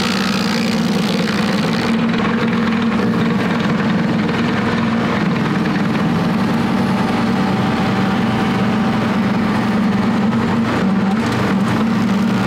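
Tractor PTO-driven 24-inch stump grinder running under load, its carbide-toothed cutter wheel grinding into a pine stump over the steady drone of the tractor engine. A hiss of cutting and flying chips is brightest in the first two seconds, then drops back to a duller grinding.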